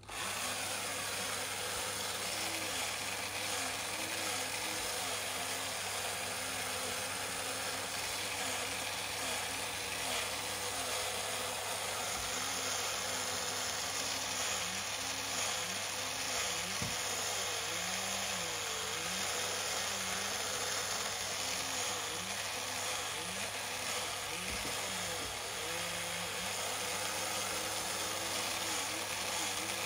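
Battery-powered electric motor and gear train of a 1950s Nomura tin toy monkey painter running steadily, a mechanical whir whose low pitch wavers up and down. It starts abruptly when the toy is switched on.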